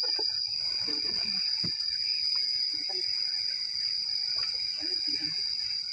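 An insect's steady, high-pitched continuous buzz, the loudest sound throughout. A few faint knocks and low murmurs underneath.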